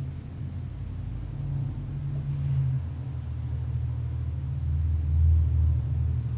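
A low rumble that swells twice, loudest a little past five seconds in.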